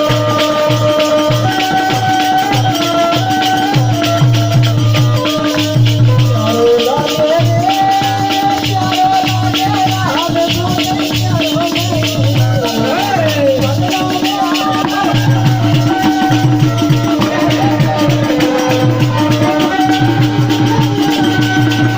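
Instrumental Indian folk music: a melody of held and gliding notes over a steady drone, with a regular hand-drum beat and constant jingling, shaken percussion.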